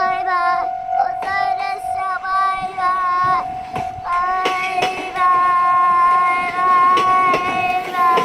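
A child singing long, drawn-out notes, over a steady single tone that sounds throughout.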